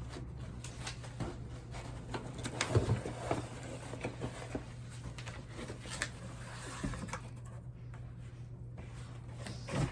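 Irregular taps, clicks and rustles of a cardboard box and its packaging being handled and opened, over a steady low hum.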